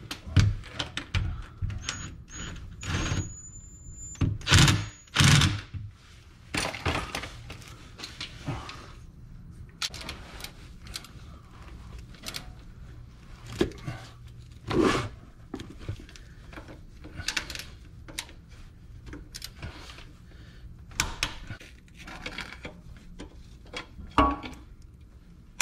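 Hand tools clicking and knocking against metal as the rear differential's bolts are tightened to torque, with a high electronic beep about two seconds in: a few short beeps, then a longer one of about a second.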